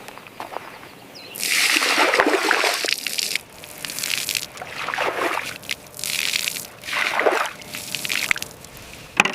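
Water sloshing and splashing in about six bursts, roughly a second apart.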